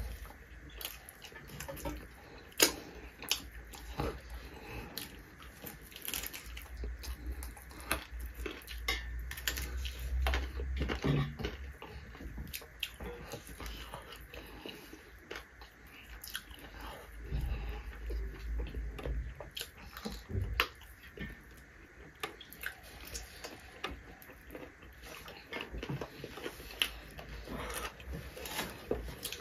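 Two people eating rice and curry by hand: close-up chewing and lip-smacking, with fingers mixing food against metal plates and many small clicks. A low rumble comes in twice.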